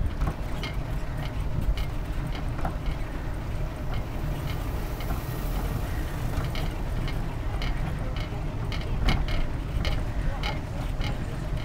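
Bicycle ride heard from a camera on the bike: a steady low rumble of wind and road, with a light, regular clicking about three times a second.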